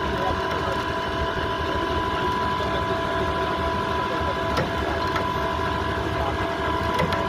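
Engine of a concrete-lifting monkey lift machine running steadily, a low rumble with a steady high whine over it and a few faint clicks.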